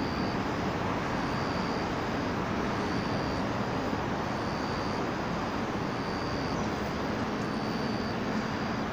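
Steady outdoor background rumble and hiss of urban noise, with a faint high-pitched tone pulsing on and off about once a second.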